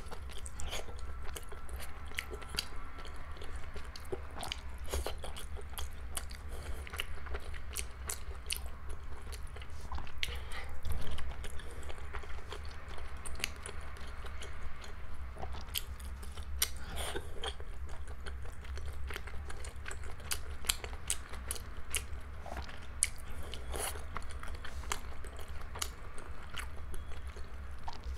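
Close-miked chewing of soft dumplings in a thick sauce: a constant run of wet mouth clicks and smacks, louder for a moment about ten seconds in. A steady low hum lies underneath.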